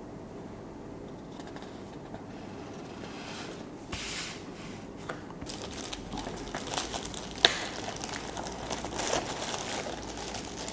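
Clear plastic film wrapped around a metal award plaque crinkling and rustling as hands grip and lift it, starting about four seconds in, with scattered sharp clicks.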